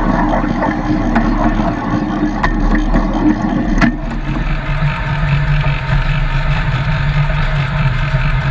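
A 7¼-inch gauge miniature railway train running along the track, its wheels clicking over rail joints. About four seconds in it enters a tunnel, and the sound settles into a steady low hum.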